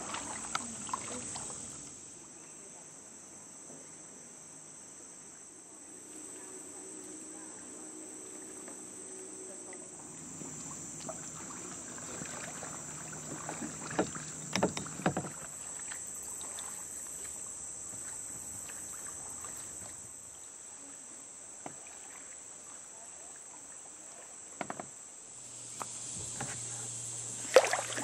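A steady, high-pitched drone of insects from the swamp forest, with kayak paddles dipping and splashing and a few knocks of paddle on hull, the sharpest knock near the end.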